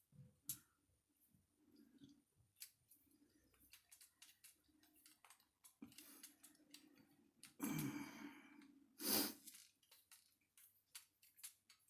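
Faint clicks and taps of small plastic kit parts and screws being handled, with two short, louder rustling noises about eight and nine seconds in.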